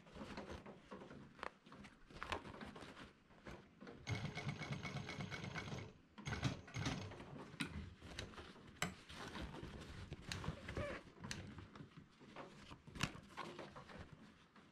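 Industrial arm-type sewing machine stitching heavy canvas in one short run of about two seconds, starting about four seconds in. Around it, the canvas rustles as it is handled and there are scattered sharp clicks.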